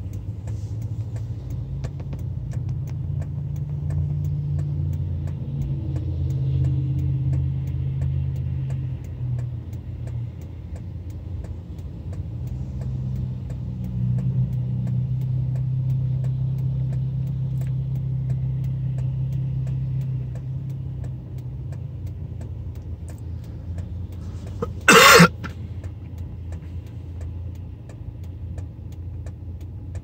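Steady low hum of a car idling while stopped at a red light, swelling and fading as other vehicles pass. One short, loud noise about 25 seconds in.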